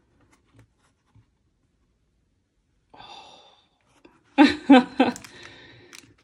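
A red fabric-covered Esterbrook pen case is opened with only faint ticks of handling. About three seconds in comes a breath in, and then a woman's breathy exclamation of delight, an 'oh' broken into three quick pulses.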